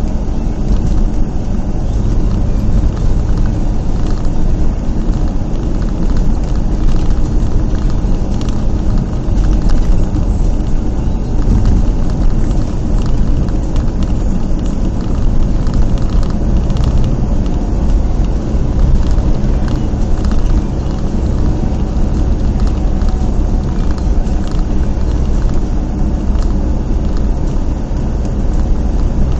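Steady engine and road rumble heard from inside the cab of a vehicle driving along a highway.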